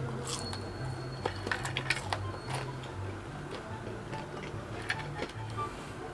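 Background music with a steady, stepping bass line, over scattered sharp clicks and smacks of someone eating, several in quick succession in the first few seconds.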